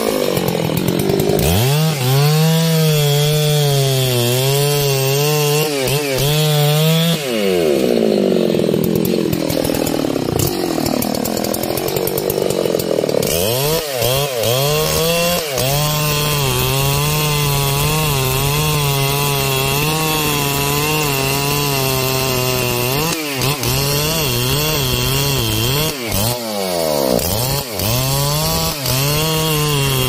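Large two-stroke chainsaw running at full revs, cutting through trembesi (rain tree) wood; its engine pitch dips and climbs back several times as the load in the cut changes.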